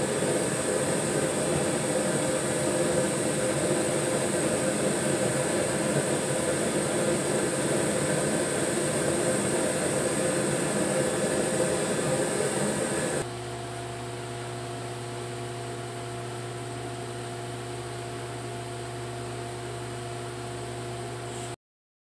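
Backyard foundry furnace blower running with a steady rushing noise and hum while aluminum is poured into a sand mold. About 13 seconds in it suddenly drops to a quieter steady hum, and the sound cuts off into silence near the end.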